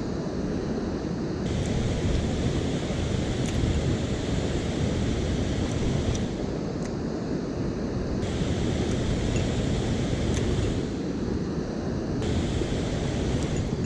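Steady rush of a mountain stream, with wind noise on the microphone.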